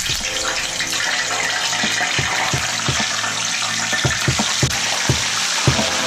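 Small coated mojarras being fried in hot oil in a cast-iron pan: the oil sizzles loudly and steadily from the moment the first fish goes in, with scattered pops and crackles throughout.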